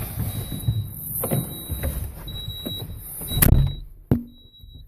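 Knocks and thumps from handling the cab of a Cat 252B3 skid steer, the loudest thump about three and a half seconds in, followed by a sharp click.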